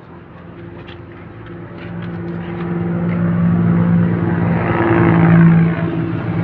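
Engine of a passing vehicle: a steady hum that grows louder over several seconds, peaks about five seconds in, then starts to fade.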